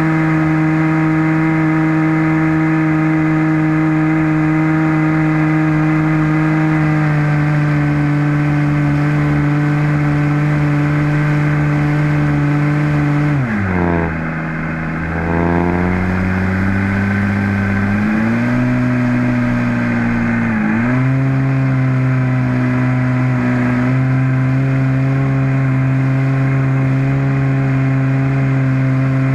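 RC model airplane's small combustion engine running at a steady high pitch. About 13 seconds in it is throttled back and the pitch drops sharply, then climbs back up over a few seconds, dips briefly once more about 21 seconds in, and settles steady again.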